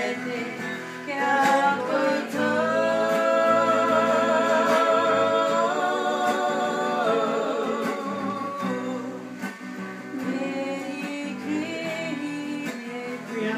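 Live singing with guitar accompaniment, the voice holding a long wavering note for several seconds in the middle.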